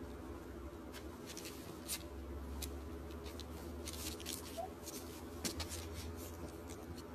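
Quiet room with a low steady hum and faint, scattered soft clicks and rustles.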